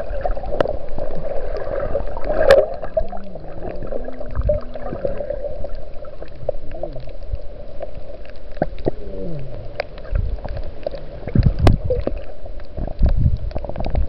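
Underwater sound through a camera housing: a steady hum with scattered clicks and gurgling, and low tones that slide up and down now and then.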